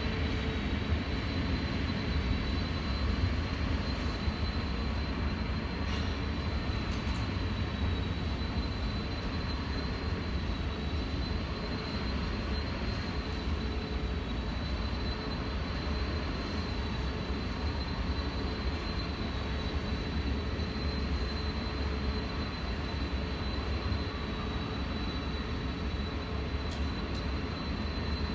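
Steady low rumbling vehicle noise with a faint constant high whine over it.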